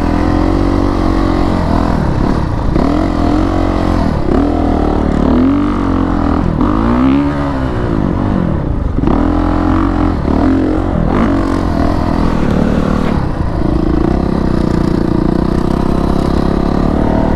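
Honda CRF450RX four-stroke single-cylinder dirt bike engine, ridden hard through sand, its pitch rising and falling again and again as the throttle is worked open and shut.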